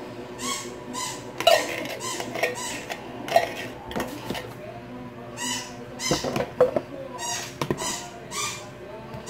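A metal spoon scraping and knocking inside an opened tin can of cream as the last of it is emptied out, a string of short scrapes and clinks. Near the end the spoon stirs the salad in a plastic tub.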